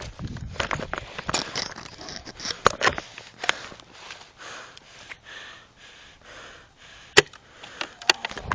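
A person breathing and sniffing hard close to the microphone, with a few sharp clicks scattered through.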